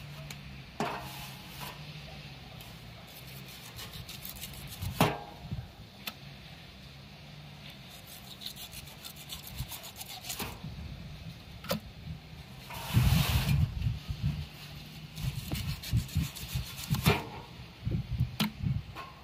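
A knife sawing and scraping through a nurse shark's tough, rough skin to cut off its fins: irregular rasping strokes with a few sharp clicks, and a louder run of strokes about two-thirds of the way through.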